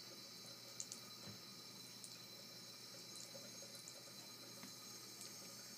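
Faint, steady trickle of a thin stream of tap water falling into a bathroom sink, with a few small ticks about a second in.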